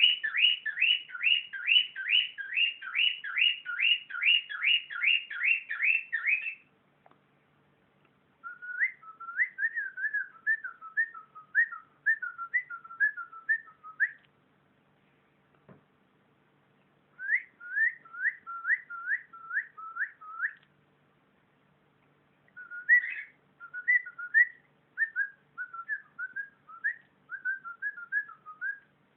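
Cockatiel whistling. It opens with a fast run of repeated rising notes, about three a second, for some six seconds, then goes on in warbled phrases of varied notes broken by short pauses.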